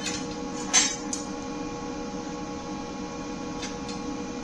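A steady electrical hum with several fixed tones, and a few light metal clinks from steel parts being handled, the sharpest just under a second in and fainter ones near the end.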